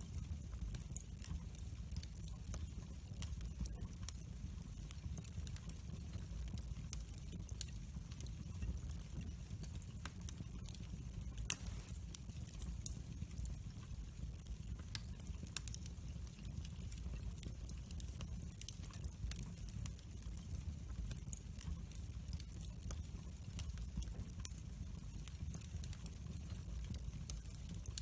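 Split firewood logs burning in a metal fire pit, crackling with frequent small snaps and one sharper pop about halfway through, over a low steady rumble.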